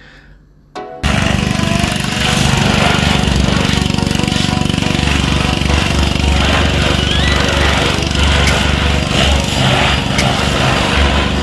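A small engine running steadily with a buzz under a low, uneven rumble. It starts abruptly about a second in.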